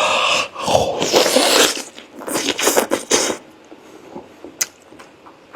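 Scraping and clattering of utensils and dishes while the food is handled, in several noisy bursts over the first three seconds or so, then quieter with a single sharp click near the end.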